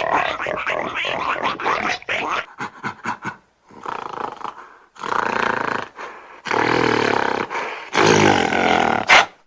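Animal growling and roaring in several short bursts separated by abrupt cuts, the longest about a second each near the end.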